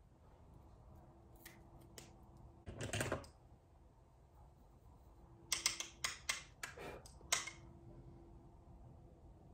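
Small clicks and taps of makeup items being handled, with a short scraping rustle about three seconds in and a quick run of clicks near the middle.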